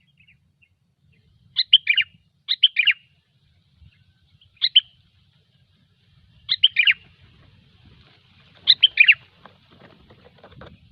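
Sooty-headed bulbul (kutilang) singing in short phrases of two to four quick notes, five phrases spaced one to two seconds apart.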